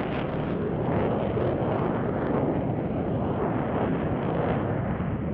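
Steady rumbling roar of jet engines, muffled, with little in the high end.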